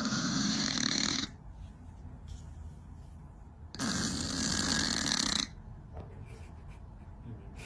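Snoring: two long, harsh snores about four seconds apart, each lasting over a second.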